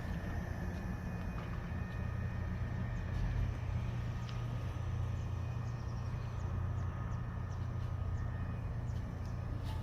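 Steady low outdoor rumble with a few faint, short high chirps and ticks over it.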